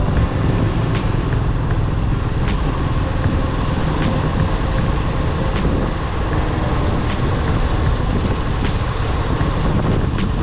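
City street traffic noise: a steady, dense rumble of passing motor vehicles.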